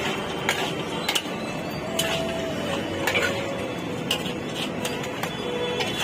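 Steel ladle knocking and scraping against a large steel pot and platter as tarri gravy is served, several sharp clinks spread irregularly over a steady background hubbub.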